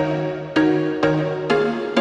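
Background music: a song intro with sustained chords struck about twice a second.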